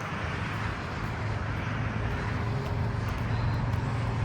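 Road traffic: the steady engine and tyre noise of a passing vehicle, slowly growing louder.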